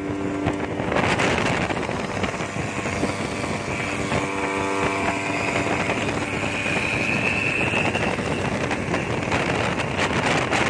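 Speedboat's 60 hp outboard motor running hard at speed, with wind on the microphone and water rushing past the hull. A high whistle rises briefly about six to eight seconds in.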